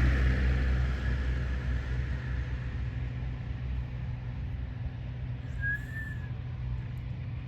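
Combine harvester engine running with a steady low hum, dropping in level about a second in and then holding steady. A single short high chirp sounds about six seconds in.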